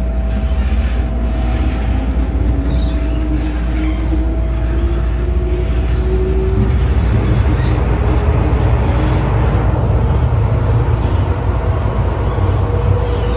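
MTR Tsuen Wan Line M-train accelerating away from a station: the traction motors whine, rising in pitch over the first six seconds, then give way to a steady rumble of the train running on the track.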